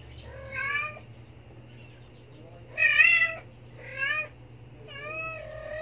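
Young nursing kittens mewing: four short high-pitched mews, the loudest about three seconds in and a longer, drawn-out one near the end.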